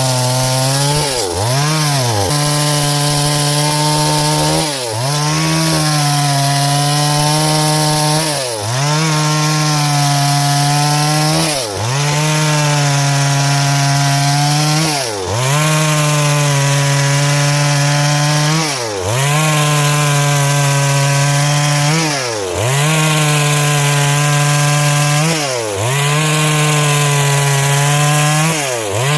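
Chainsaw cutting lengthwise through wood at high revs, its engine note dipping briefly and recovering about every three and a half seconds.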